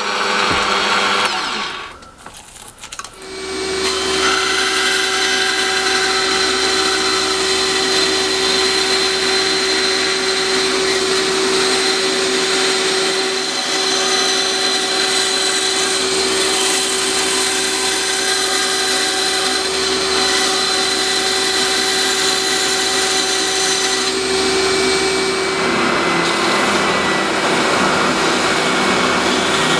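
A bench drill press running briefly at the start, then a bandsaw motor humming steadily while the blade cuts the outline of a plastic router base plate. Near the end it gives way to a bench belt sander running as the plate's edge is sanded.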